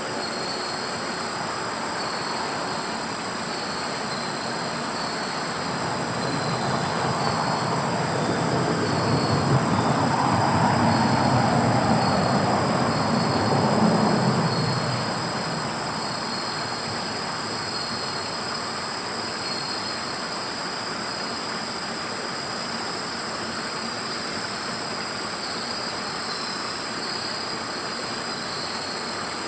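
A steam-hauled passenger train, a C57 locomotive with 12-series coaches, passes the level crossing. Its rumble builds from about six seconds in, is loudest for a few seconds in the middle, then dies away. Insects chirr steadily throughout.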